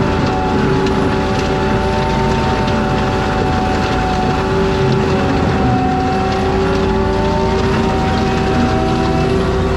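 Forestry mulcher on an ASV RT-120F compact track loader running steadily, its engine and cutting drum holding a constant hum with a higher whine that slowly sags and recovers as the drum takes load.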